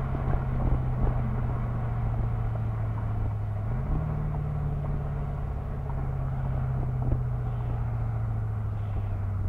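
Exhaust of a 2006 Mercedes-Benz CLS55 AMG's supercharged 5.4-litre V8, heard at the rear exhaust tips while driving at a steady low engine speed. About four seconds in, the engine note steps up sharply, as the automatic transmission shifts down, then slowly falls with tyre and road noise underneath.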